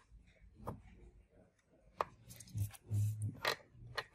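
Multimeter test probes clicking and tapping against the metal leads of a transistor and the meter's plastic case while the transistor is checked: a handful of light, sharp clicks and small knocks, busiest a little past the middle.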